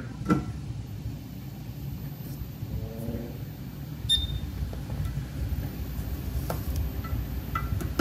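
Quick 861DW hot air rework station: a short high beep about four seconds in, then the low, steady rush of its blower grows louder as the hot air starts up.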